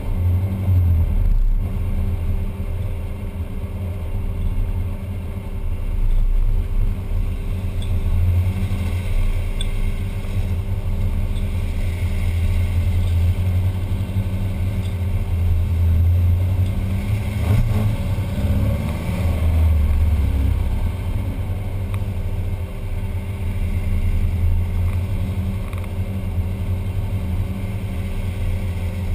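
A VW Type 2's air-cooled flat-four engine runs steadily at low speed as the van creeps along, under a continuous low rumble.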